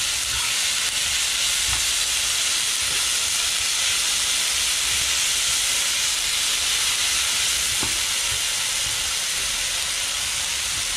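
Shredded potatoes and vegetables sizzling in hot oil in a frying pan, a steady hiss, with a couple of faint clicks from the metal spoon stirring them.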